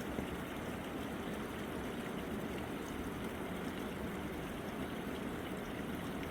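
Fast mountain river rushing past in a steady, unbroken flow.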